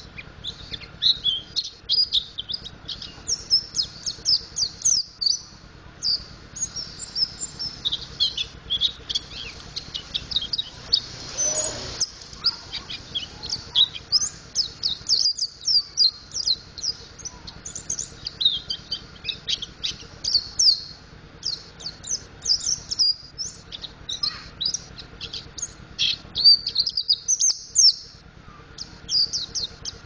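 Mountain white-eye singing a fast, continuous run of high, thin chirps and twitters: a bird practising the ngriwik style of song that pleci keepers train for. A brief burst of noise comes about halfway through.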